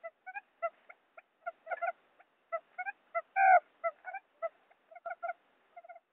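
Quail lure-call recording: a rapid, irregular string of short pitched calls, several a second, with one louder, longer call about three and a half seconds in.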